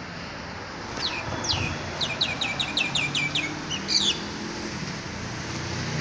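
A songbird singing: a run of quick, repeated downward-slurred chirps, about five a second, from about a second in until about four seconds, over a faint low steady hum.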